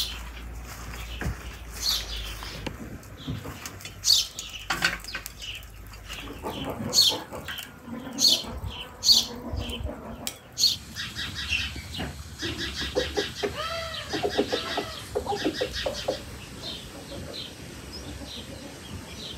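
Small birds chirping in short high calls, with a chicken clucking for several seconds past the middle.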